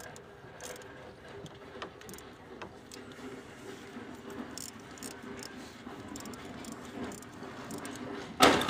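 Light metallic clicks and rattles of a hand wrench working the bolts of a water pump as they are tightened in turn, with a sudden louder burst of noise near the end.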